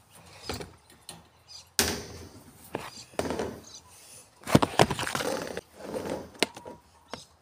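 Plastic storage-box quail feeders clattering as they are handled and set down on a wire-mesh cage top, their lids knocked to shake off sand. A few sudden knocks and rustles, the loudest a little past halfway.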